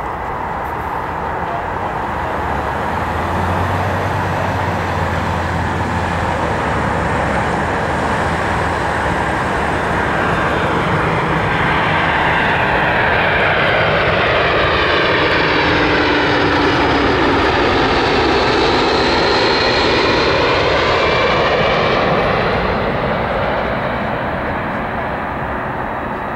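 Airbus A300-600 freighter's twin jet engines on landing approach, passing close by. The engine sound swells over the first few seconds and is loudest in the middle, with a whine that sweeps and phases as the jet goes over, then fades near the end.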